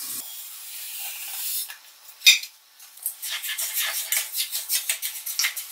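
Sugar pouring into a stainless steel pot of water with a hiss, then a single knock a little after two seconds. After that, a spoon stirs the sugar against the steel pot in quick, regular scrapes, about four a second.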